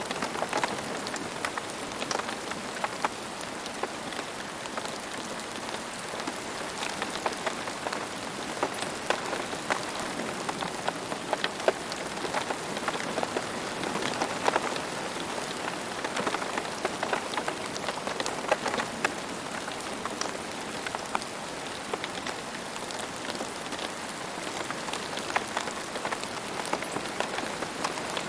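Steady rain falling on a surface: a continuous hiss dotted with many individual drop impacts.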